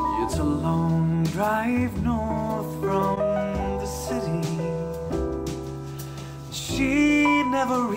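Piano-led pop song played back through a pair of studio monitors and picked up by a microphone in the room. Partway through, playback moves from Kali LP-6 monitors to Adam Audio T7V monitors.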